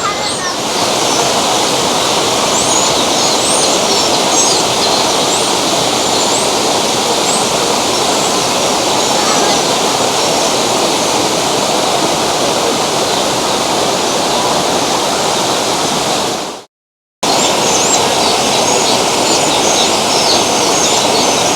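Steady rushing water, as of a waterfall, with birds chirping over it. The sound cuts out for a moment near the end, then carries on.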